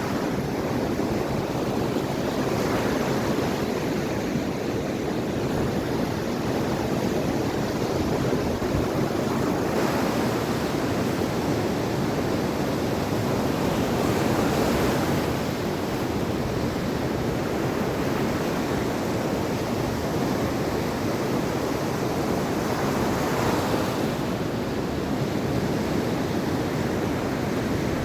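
Mediterranean Sea waves breaking and washing onto the shore, in a steady surf wash with waves swelling up every several seconds. Some wind buffets the microphone.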